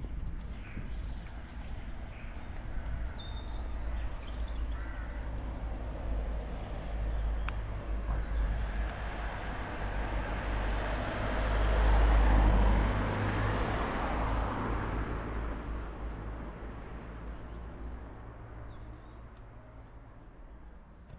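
A car passing on the road, its engine and tyre noise swelling to a peak about halfway through, then slowly fading away. A few bird calls sound during the first few seconds.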